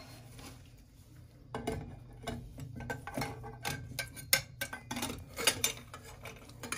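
Brass P-trap parts clinking and knocking against each other and the drain fittings as they are handled and fitted under a sink: irregular sharp metallic clicks, several a second, starting about a second and a half in.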